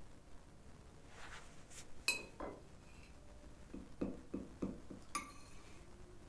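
Kitchen utensils and dishware clinking: two sharp ringing clinks about three seconds apart, with a few soft knocks between them.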